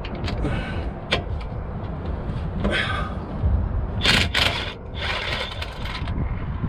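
A steady low rumble, with several short knocks and scrapes. The loudest is a cluster of harsh, hissy scrapes about four seconds in.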